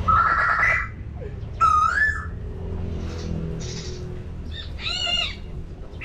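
Birds calling: a few short whistled calls, one rising in pitch about two seconds in and another near the end.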